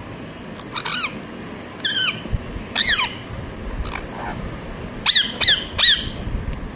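A parrot giving short, sharp chirps: three about a second apart, then three in quick succession a little after the middle.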